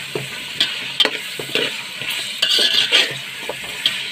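A metal spoon stirring and scraping against a large metal pot of diced potatoes and peas frying in oil with dry spices. A steady sizzle runs under short, repeated scrapes of the spoon.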